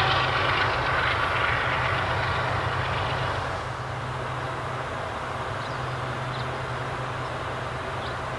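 Manifest freight train cars rolling past on the rails, with a few thin high steady tones from the wheels in the first couple of seconds; the sound drops a little about three and a half seconds in and carries on as a steadier, quieter rolling rumble.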